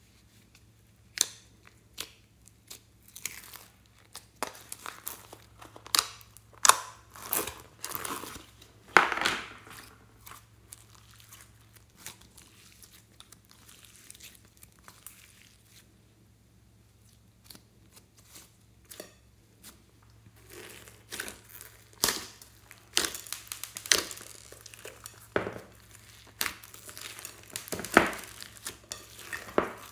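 Glossy slime being stretched, folded and squeezed by hand, giving irregular wet clicks and crackles as trapped air bubbles pop. The crackling is sparse in the middle and thickens again near the end as the slime is kneaded.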